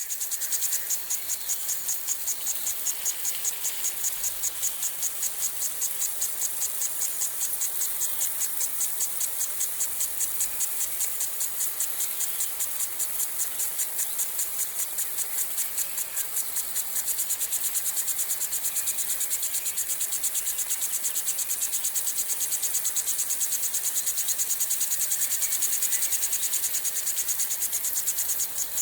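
Lawn sprinkler spraying water: a steady high hiss that pulses in a fast, even rhythm.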